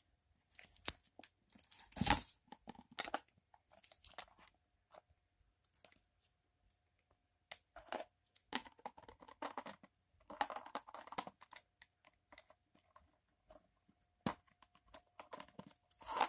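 A pet bird working at a plastic margarine container with its beak to get the toys out: scattered clicks, taps and crunchy scrapes of beak on plastic, with quiet gaps between them.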